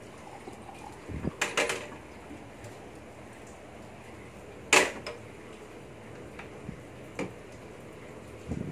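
A few scattered clicks and knocks of kitchen items being handled and set down: a short cluster about a second in, one sharp click near the middle, and a low knock near the end as a mug is brought over.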